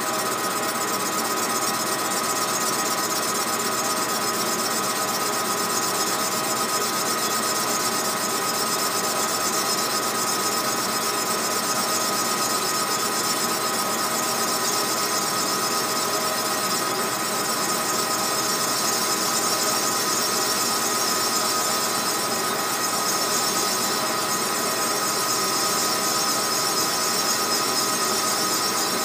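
Small metal lathe running steadily with a constant whine, turning an aftermarket Warhawk Stihl MS 660 chainsaw cylinder held in the chuck.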